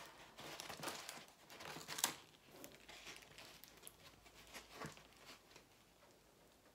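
Clear plastic protective film on a diamond-painting canvas crinkling as the canvas is handled, in irregular crackles that are loudest about two seconds in and die away over the last second and a half.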